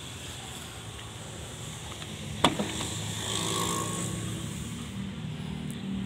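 Mitsubishi Canter truck cab door unlatched and swung open: a sharp latch click about two and a half seconds in, a smaller click just after, then a brief rustle of the door moving, over a low steady hum.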